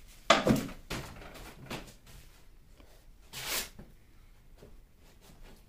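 A few sharp knocks and clacks as painting tools are picked up and put down at a paint tray, the loudest just after the start. About three and a half seconds in comes a brief rustling scrape.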